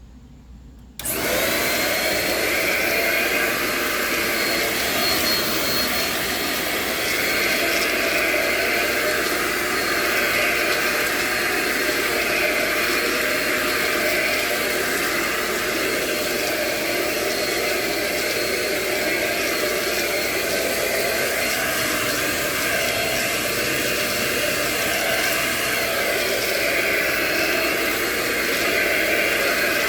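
EuroPro bagless stick vacuum switched on about a second in, its motor then running steadily with a faint high whine as it vacuums the floor.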